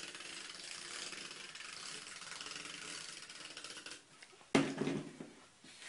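Adhesive tape runner rolled along a cardstock strip, giving a steady fine ratcheting whir for about four seconds. About four and a half seconds in there is a single knock.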